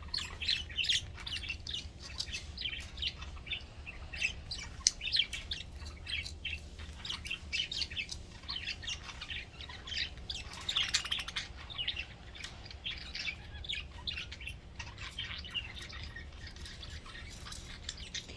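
Budgerigars chirping and chattering continuously, a dense run of short quick chirps and warbles.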